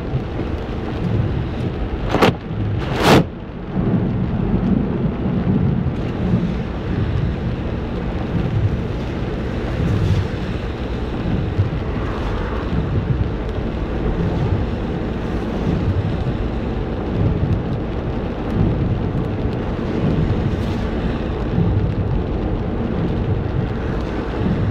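Heavy rain: a steady rush of noise with low rumbling underneath. Two sharp loud cracks come about two and three seconds in.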